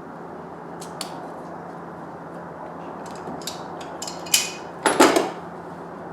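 Hard parts and tools being handled during a cold air intake install: a click about a second in, then scattered clinks and a louder clatter near the end.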